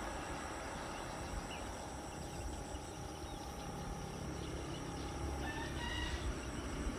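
A rooster crowing faintly over a steady background hiss of outdoor ambience.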